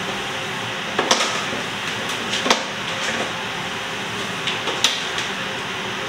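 Kitchen utensils clicking and knocking a few times, at irregular moments, over a steady hiss.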